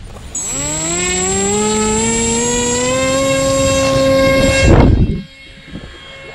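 Nano Skyhunter FPV wing's electric motor and propeller spooling up to a whine that rises in pitch, then holds steady while the wing is held for a hand launch. About five seconds in comes a loud rush of air as it is thrown, and the motor sound then drops away suddenly as it flies off.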